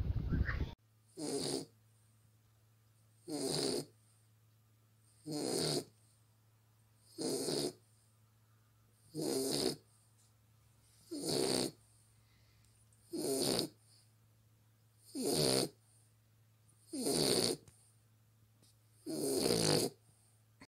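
A sleeping flat-faced dog snoring steadily, one snore about every two seconds, ten in all. Before that, a brief outdoor noise cuts off under a second in.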